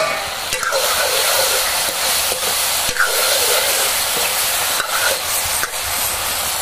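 Diced bottle gourd, potatoes and peas sizzling in hot oil in an iron kadhai with a steady hiss, just uncovered after steaming. A metal ladle scrapes and knocks against the pan a few times as the vegetables are stirred.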